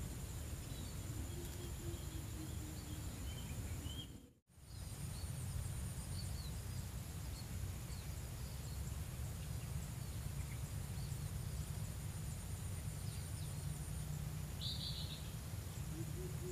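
Riverside ambience: a steady high-pitched drone of insects with scattered small bird chirps over a low rumble. The sound drops out completely for a moment about four seconds in.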